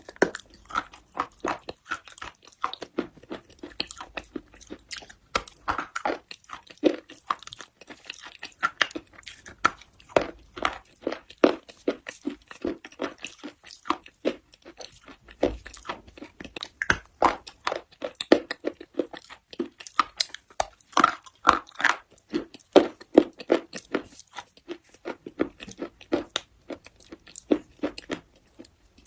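A person biting and chewing slate, a dense uneven run of sharp, gritty crunches, several a second.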